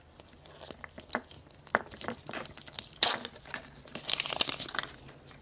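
Surprise egg's wrapper crinkling and tearing as it is unwrapped by hand: an irregular run of sharp crackles and rustles, busiest a little past the middle.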